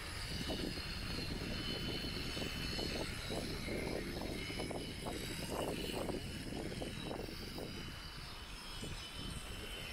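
Electric shearing handpiece running steadily with a whine as it cuts through alpaca fleece.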